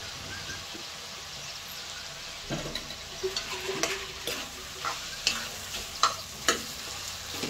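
Mashed potatoes and tomato masala sizzling gently in a metal wok, then a spatula stirring and scraping them through the pan from about two and a half seconds in, knocking sharply against the wok several times.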